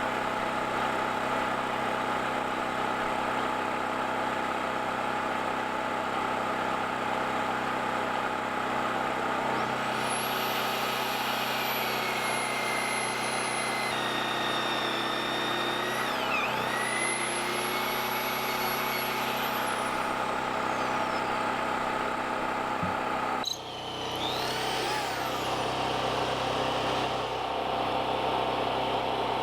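A small engine running steadily throughout. For about ten seconds in the middle a high motor whine rides over it, sagging in pitch and recovering, and a shorter whine winds up after a brief dip near the end.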